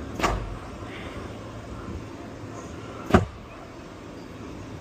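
Steel roller coaster train creeping slowly along the track near the station at the end of the ride, with a steady low rumble and two sharp clunks about three seconds apart.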